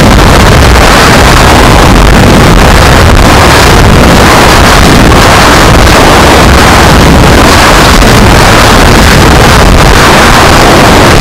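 Air rushing over a rocket's onboard camera and its microphone in flight: loud, steady wind noise that clips at full level.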